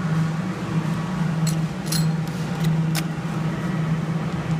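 Steady low electrical hum of a claw machine, with a few sharp jingling clicks about one and a half, two and three seconds in as cash is handled.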